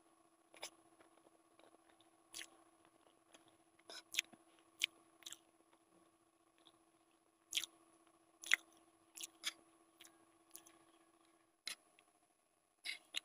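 Close-miked eating of Maggi instant noodles and boiled egg: chewing with about a dozen short, sharp mouth and fork clicks scattered through, over a faint steady hum.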